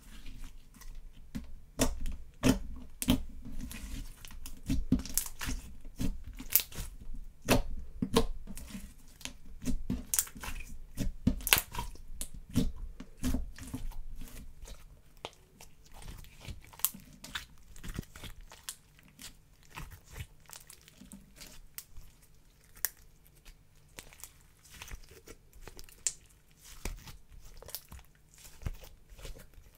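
Thick slime being squeezed, folded and stretched by hand, giving many sticky clicks and pops. The pops come thick and loud for the first half, then grow sparser and softer.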